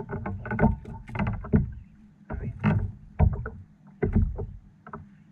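Water sloshing and knocking against a small fishing boat's hull in irregular bursts, with low thuds among them.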